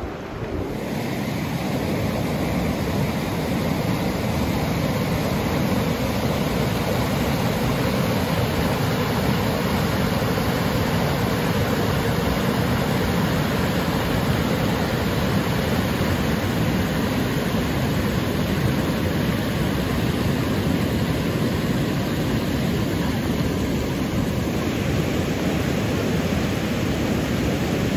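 Steady rushing of fast river rapids, a continuous loud wash of churning whitewater.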